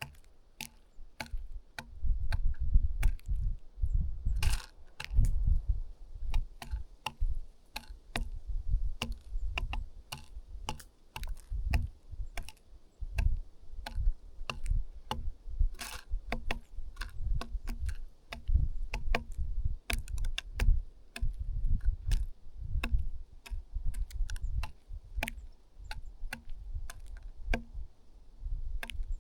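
Birds pecking at food on a hard feeder surface: a rapid, irregular run of sharp taps, over low rumbling thumps.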